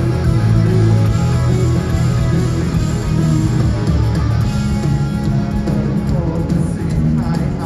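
A live rock band playing loudly, with electric guitars over drums.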